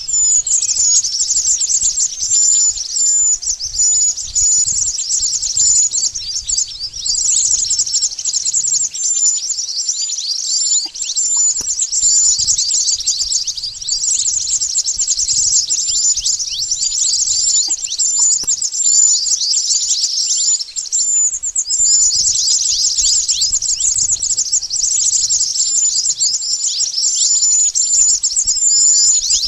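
Mantenan bird lure call: dense, high-pitched chirping and rapid twittering from several birds, with a short high note repeated a few times a second and barely a pause.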